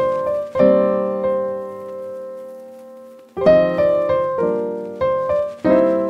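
Background music: piano chords, each struck and left to ring away, with one long chord held for nearly three seconds about half a second in, then a quicker run of chords.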